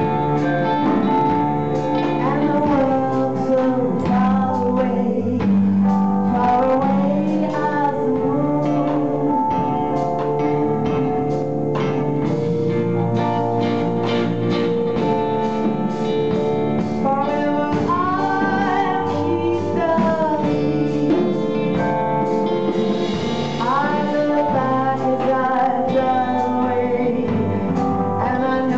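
Live band playing a song, a woman singing lead over drum kit, electric guitar and keyboard.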